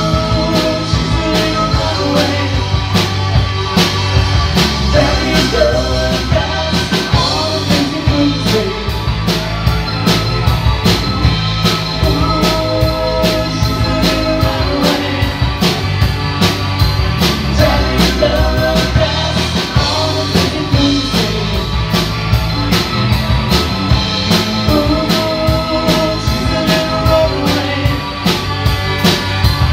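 Rock band playing: a drum kit keeps a steady beat under electric guitar, with a voice singing over it.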